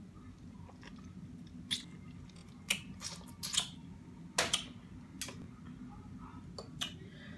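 Close-up eating sounds: chewing and biting on seafood, with about nine short sharp clicks and smacks spread irregularly, over a steady low hum.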